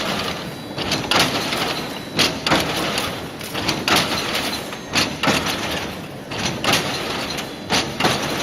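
FET-ME1202 gabion mesh machine running, twisting and weaving steel wire into hexagonal mesh: a steady mechanical clatter with sharp metallic clanks about once a second.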